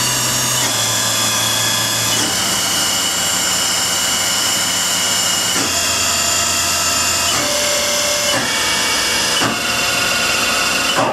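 Haas Super MiniMill's 10,000 rpm spindle whining as it is backed down from top speed, its pitch dropping in several distinct steps. The sound cuts off suddenly near the end.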